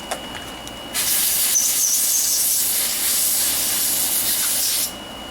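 Compressed-air blow gun blowing oil and fuel off a lawnmower part: a loud steady hiss starting about a second in and cutting off sharply about four seconds later.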